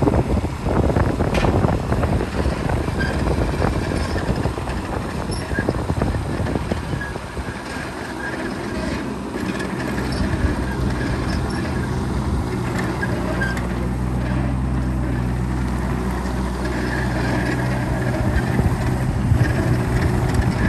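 A JCB 15C-1 mini excavator's diesel engine running as the machine tracks across gravel. Clattering and rattling through the first several seconds give way to a steady engine drone.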